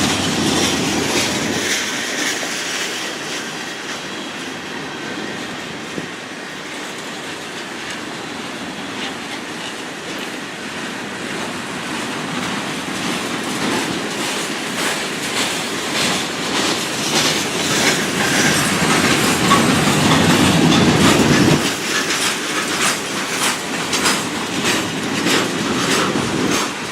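Freight train rolling past, its wheels clicking in a steady rhythm over the rail joints. A louder low rumble builds and cuts off sharply a little past two-thirds of the way through.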